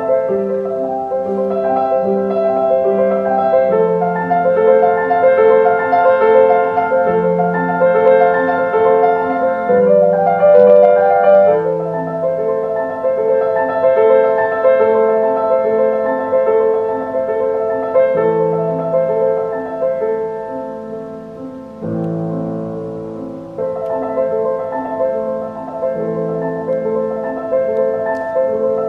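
Grand piano playing a classical piece, its notes and chords ringing on one into the next. A loud, full low chord is struck about three-quarters of the way through.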